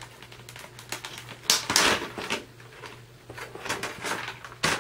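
Clear plastic clamshell packaging being pried open by hand to free a 2.5-inch SSD: irregular clicks and crackles of the plastic, loudest about one and a half to two seconds in, with another sharp click near the end. A faint steady low hum runs underneath.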